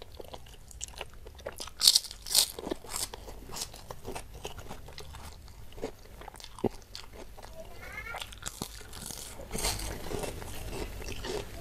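A person eating: wet chewing and biting with many short crunches, the two loudest about two seconds in.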